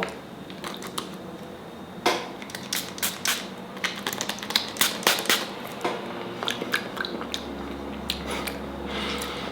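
Scattered wet clicks and smacks from a mouth, as someone tastes a sour spray candy, with a few short sharp knocks among them.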